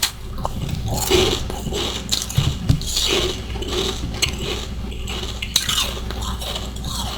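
Close-up biting and crunching of powdery freezer-frost ice chunks in the mouth, a run of crackly crunches with a few sharper snaps.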